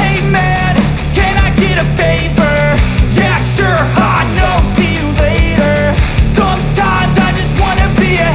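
Background rock music with a steady drum beat, bass, and sung or lead melody.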